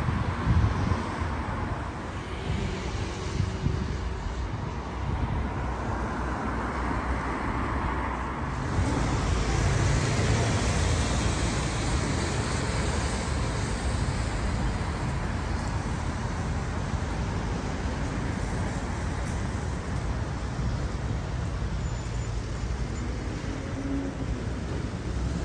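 Street traffic on a wet road: a continuous rumble and tyre hiss of passing cars and buses, swelling louder about nine seconds in as a heavier vehicle goes by.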